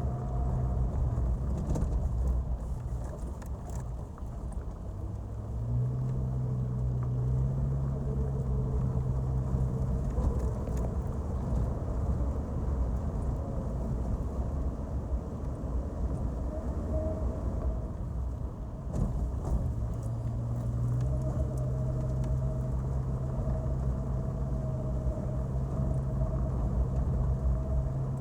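Off-road vehicle engine running as it drives along a rough mountain track, with a steady low drone. The engine note strengthens about six seconds in and again about twenty seconds in, as the revs change.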